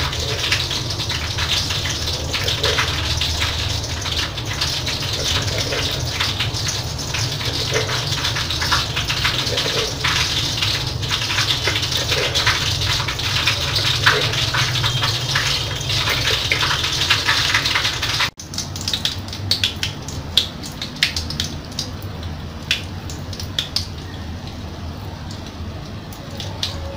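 A steady rushing, water-like noise with scattered clicks of a spoon working in a clay mortar. After a sudden cut about two-thirds of the way in, oil crackles and pops around a whole snakehead fish frying in a wok.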